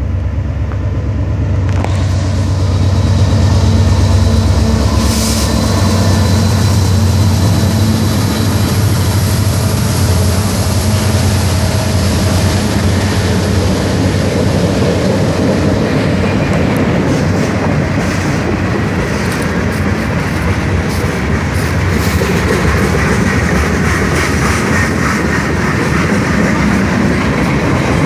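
A diesel freight train passing close by. For the first half the locomotives' engines give a steady low drone, then the freight cars' wheels rumble and click over the rail joints.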